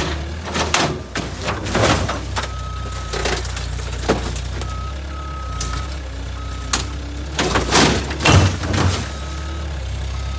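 Skid steer's diesel engine running under load with its backup alarm beeping on and off, while metal crunches and bangs as it smashes into a car body; the heaviest crashes come at the start and again about eight seconds in.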